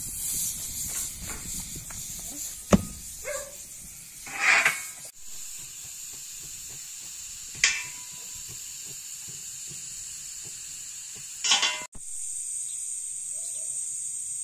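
Steam hissing steadily out of the pressure valve of an Afghan kazan, a cast-aluminium pressure cooker, as its pressure is let off. A few brief, sharper noises break in over the hiss.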